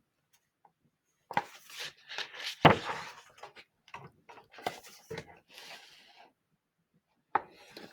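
Paper rustling with light knocks as a picture book is handled and a page is turned, the sharpest knock a little under three seconds in.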